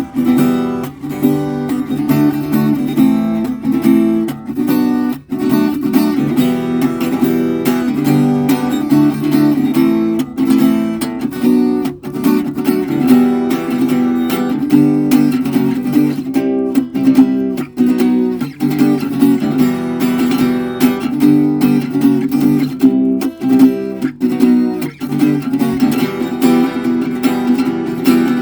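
Acoustic guitar strummed in a steady rhythm, with chords ringing throughout.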